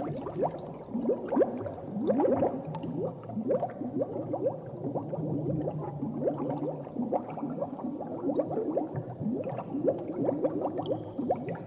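Underwater bubbling sound effect: a stream of short rising bubble blips, several a second, over a steady low muffled hum.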